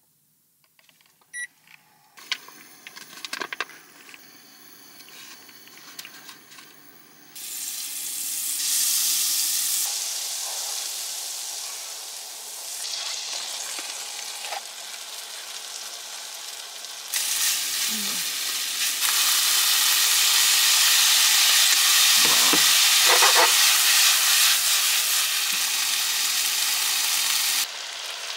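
Butter sizzling in a frying pan, then sliced shiitake mushrooms and chicken frying in it, an even hiss. The first seconds hold only faint clicks. The sizzle starts suddenly about seven seconds in and gets louder about ten seconds later.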